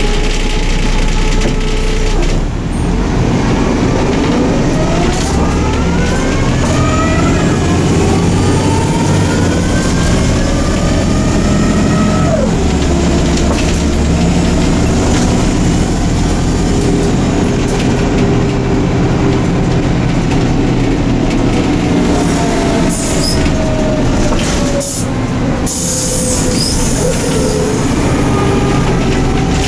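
Neoplan/ΕΛΒΟ N4007 city bus heard from inside the cabin while under way: engine and drivetrain running with a whine that rises in pitch as the bus accelerates and drops sharply at gear changes about 7 and 12 seconds in, then falls slowly as the bus slows. A few short hisses come near the end.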